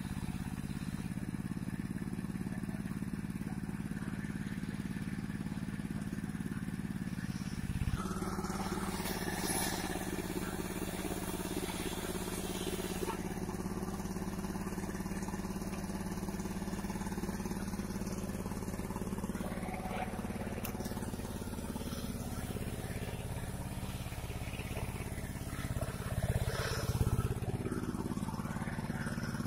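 Engine of a mobile circular sawmill running steadily, a constant low mechanical hum.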